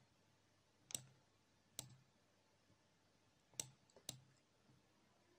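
Computer mouse clicking: four short, sharp clicks spread over a quiet room tone.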